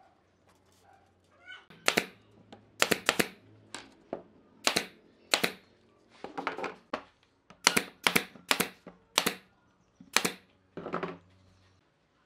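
Pneumatic brad nailer firing about a dozen sharp shots, some in quick succession, driving brads through glued pine strips into a curved laminated piece.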